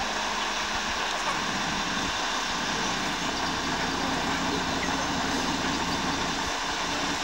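Heavy diesel engine of a mobile crane running steadily as the crane lifts a helicopter fuselage.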